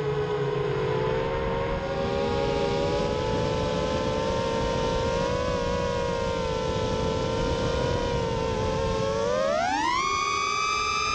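FPV racing quadcopter's electric motors and propellers whining steadily in low flight, then rising steeply in pitch near the end as the throttle is pushed up.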